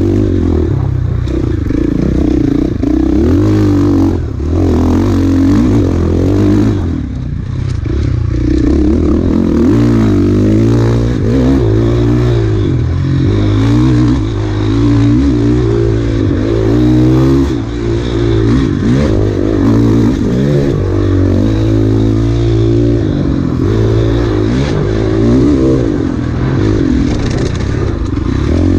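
Enduro dirt bike engine being ridden hard, revving up and down continuously as the throttle opens and closes, with brief throttle-offs now and then.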